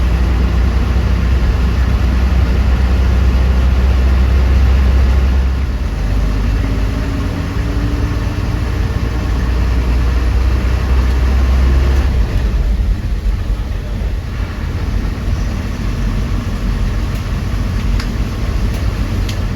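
Bus engine drone with road noise from a moving bus. The low engine note is heavy at first, eases about six seconds in, builds again, then drops off at about twelve seconds.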